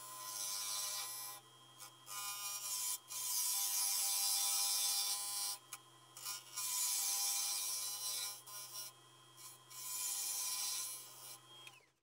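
Wood lathe running with a steady motor hum and whine while a square-shank scraper cuts the spinning wood in about five passes, each a loud scraping rush of shavings coming off. The sound cuts off abruptly near the end.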